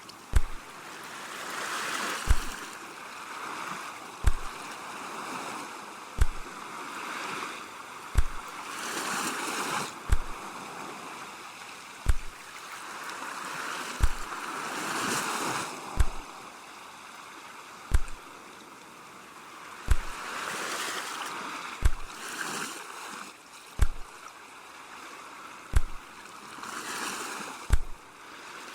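Sea waves washing in and drawing back, the hiss swelling and fading about every six seconds. A short, deep thump sounds at a steady pace of about one every two seconds and is louder than the waves.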